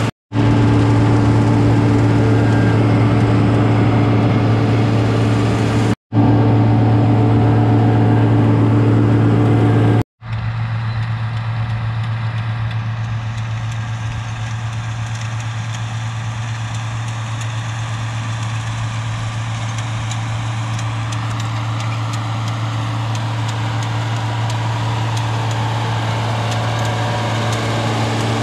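John Deere tractor's diesel engine running at a steady pitch while pulling a hay tedder. The sound drops out briefly three times in the first ten seconds, then goes on a little quieter.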